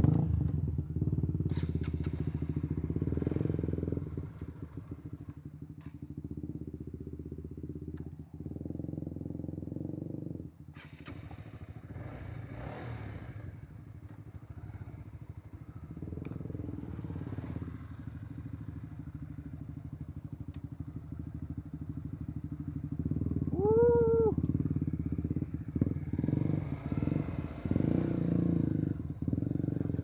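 Honda CBR150R's single-cylinder four-stroke engine firing up and then running at low revs while the bike moves slowly over a rough dirt and grass track. About two-thirds of the way through there is a short tone that rises and then falls.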